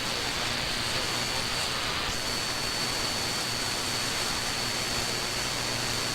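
Shortwave radio static from an RTL-SDR receiver tuned through SDR# with no station in tune: a steady hiss with a thin high whistle running through it. The hiss gets brighter about two seconds in.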